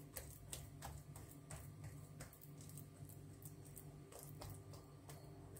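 Faint, irregular sticky clicks and squishes of fingers spreading oily ground poppy-seed paste over a sheet of dough, over a low steady hum.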